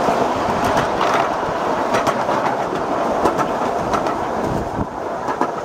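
Miniature train on 7.5-inch gauge track rolling along: a steady rumble from the wheels and open passenger cars, with scattered, irregular clicks and clacks.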